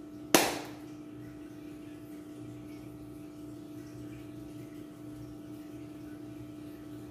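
A single sharp click about a third of a second in, the snap of a plastic seasoning shaker's flip-top cap being opened, over a steady hum.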